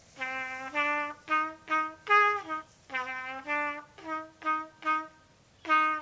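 Solo trumpet playing a melody of short, separated notes with a few longer held ones. The highest and loudest note comes about two seconds in, and there is a brief pause near the end before one more note.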